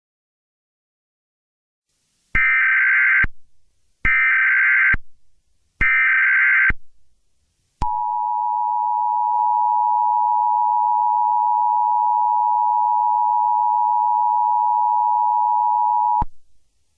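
Emergency Alert System tones: three short screeching data bursts of just under a second each, about a second apart, then the steady two-tone attention signal held for about eight seconds before it cuts off sharply.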